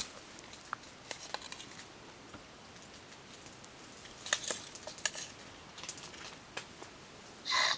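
Small pieces of food dropped onto a steel plate of raw chicken, with light clicks and rustles, among dry leaves and grass; a short, louder rustling burst near the end.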